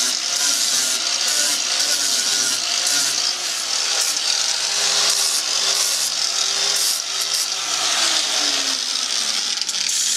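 Electric angle grinder with a sanding disc running steadily against fiberglass, grinding and rounding off the edge of a hole cut through the fiberglass-and-wood transom.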